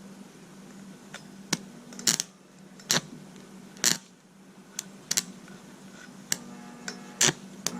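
Irregular sharp metallic clicks and clanks, about eight in a few seconds, from steel parts being handled and knocked during fabrication, over a steady low hum.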